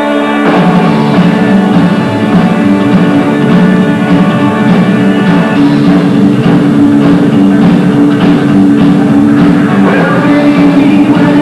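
Live rockabilly band playing an instrumental passage on electric guitar and drums. A held guitar chord breaks into the full band with a driving drum beat about half a second in.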